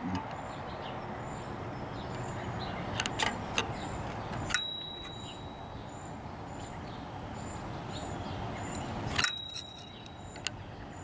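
Remington Standard 12 typewriter's margin bell struck twice, about four and a half seconds apart, each ding ringing on and fading. A few light mechanical clicks come just before the first ring.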